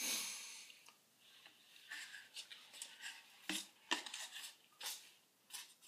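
Wooden chair slats being handled: a brief rub at the start, then a scattered series of faint light clicks and knocks as the wooden pieces bump and rub together.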